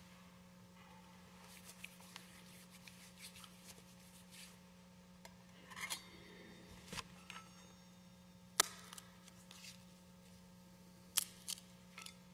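Faint scattered clicks, light knocks and brief rustling as a priest handles altar vessels and papers on the altar, over a steady low hum. The sharpest click comes past the middle, and a quick run of them follows near the end.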